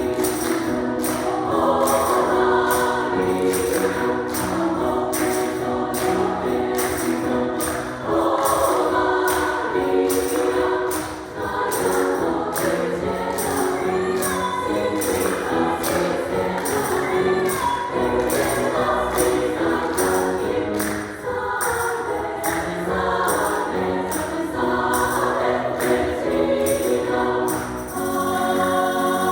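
Women's choir singing an upbeat gospel-style hymn over a steady percussive beat of about two strokes a second. The beat stops about 28 seconds in as the harmony settles into sustained chords.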